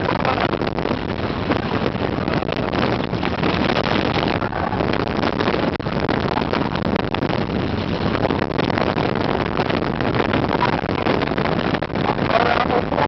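Steel Dragon 2000 roller coaster train running at speed, heard from a seat on the train: a steady rush of wind over the microphone mixed with constant rattling from the train on the steel track.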